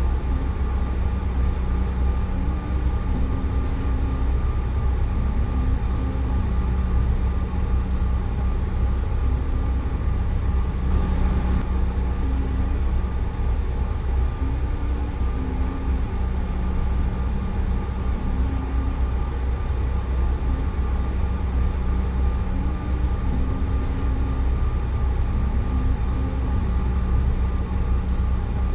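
Steady cabin noise inside a Bombardier CRJ900 regional jet: a low rumble and even hum with a few steady tones from its running twin rear-mounted CF34 turbofans, without any surge or change in level.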